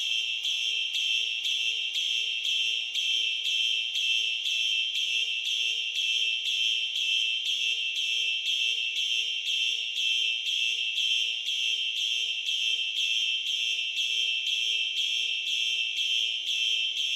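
Fire alarm sounding in march-time code: quick, even, shrill pulses, about two to three a second, keeping a steady rhythm.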